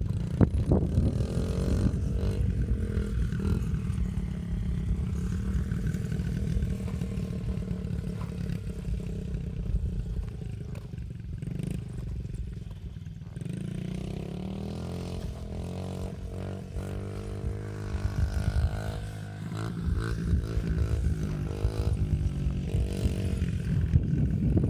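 Small dirt bike's engine revving up and easing off through the gears as it rides around a dirt track, heard from a distance, dropping quieter in the middle and building again after. A low rumble of wind on the microphone runs underneath.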